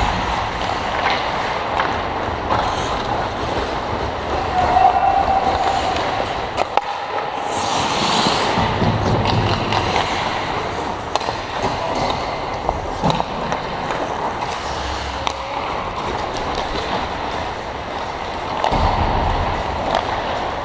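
Ice hockey play on an indoor rink: skate blades scraping and carving the ice under a steady arena din, with sharp clacks of sticks and puck now and then and a hissing scrape of a skate stop about eight seconds in.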